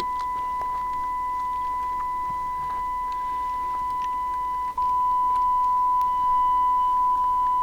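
A steady, beep-like test tone playing through the Cobra 148GTL CB radio's speaker, with faint clicks as the external speaker jack is worked. It cuts out for an instant about five seconds in and comes back louder, then drops out again at the very end, as a plug goes in and out of the jack, which is being checked after its bent contacts were straightened.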